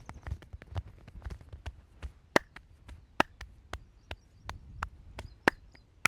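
Rapid hand chops and slaps of a percussive massage, about four strokes a second, with a few much louder, sharper cracks among them.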